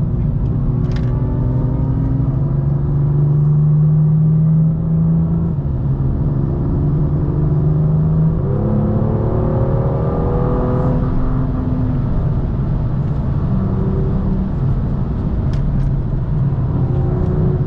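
Onboard sound of a BMW M2's turbocharged straight-six at speed on track: the engine pulls up through the revs, then about eight seconds in the revs jump up on a downshift and fall away as the car slows, before it pulls again.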